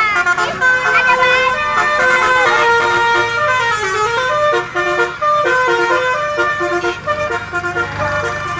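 Indonesian 'telolet' bus horns playing rapid multi-note melodies, several horns overlapping, over the low rumble of bus engines. Shouting voices are mixed in near the start.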